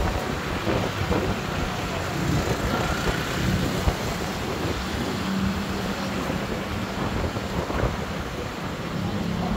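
A moving tour bus's engine with a steady low hum, and city traffic around it, with wind on the microphone.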